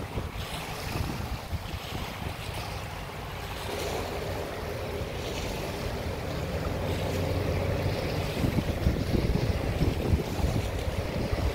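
Gusty wind buffeting the microphone over choppy water, with waves lapping. A steady low hum joins about four seconds in, and the gusts grow louder toward the end.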